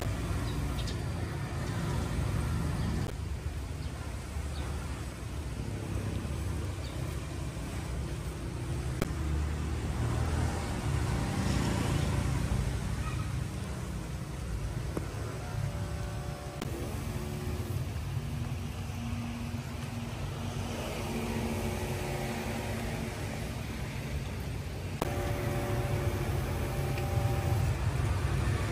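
Steady low rumble of road traffic, with vehicles heard faintly in the distance.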